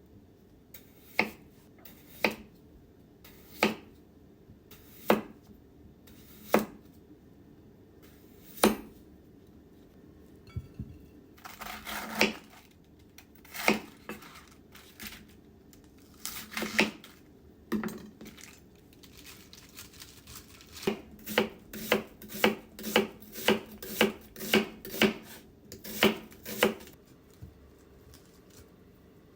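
Knife cutting on a wooden cutting board: single cuts a second or more apart, then a quicker run of chops near the end.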